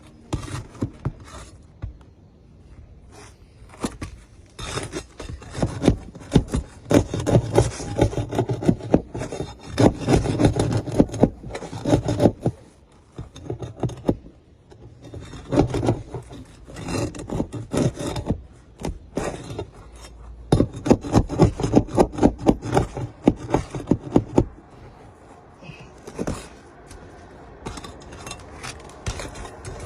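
Spells of rapid scraping and rubbing strokes of a hand tool working against asphalt roof shingles, with short quieter pauses between the spells.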